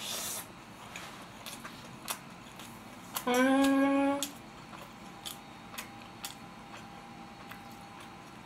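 Close-up eating sounds: a short slurping bite as a spoonful of fried rice goes into the mouth, then soft chewing clicks, and about three seconds in a steady hummed 'mmm' lasting about a second, made with the mouth closed while chewing.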